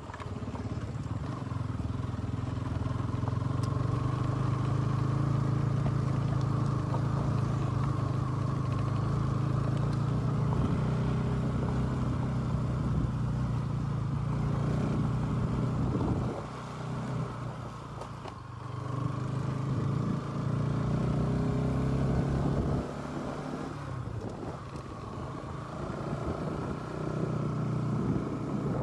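Motorcycle engine running under way, its note easing off and picking up again with the throttle, with a dip around the middle and a drop back near the end.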